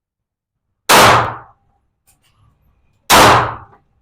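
Two handgun shots about two seconds apart, each a sharp crack followed by a short echoing tail.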